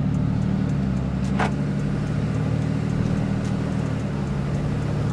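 Straight-piped Cummins turbodiesel in a Ram pickup running at low revs, heard from inside the cab as the truck drives, with one short click about a second and a half in.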